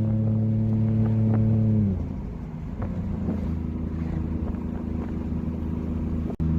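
Car engine running at a steady speed while driving; about two seconds in the engine speed falls and its note drops, then it holds steady at the lower pitch. The sound cuts out for an instant near the end.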